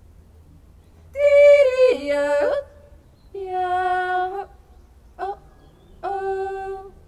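A woman yodeling unaccompanied: four short calls of held notes, the first with sudden leaps down and back up in pitch, the third very brief.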